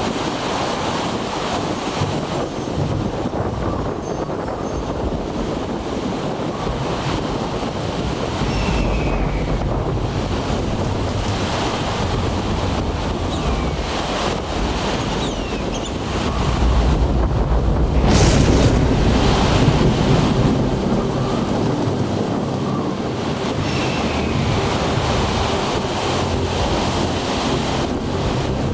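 Sea surf washing in steadily while strong wind buffets the microphone with a low rumble; the wind and surf grow louder a little past the middle, then ease.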